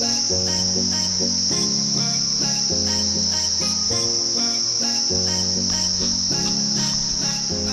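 Steady high-pitched drone of forest insects, with background music laid underneath: a repeating melody over bass notes that change about every second.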